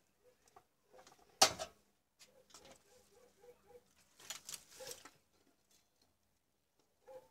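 Small handling noises on a workbench: a sharp knock about a second and a half in, then scattered clicks and rustling, with a faint regular tick about three times a second starting a little after two seconds in.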